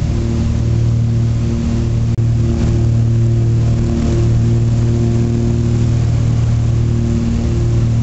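Cabin noise of a Britten-Norman Trislander in flight: its Lycoming O-540 flat-six piston engines and propellers drone loudly and steadily at constant pitch, with a momentary dropout about two seconds in.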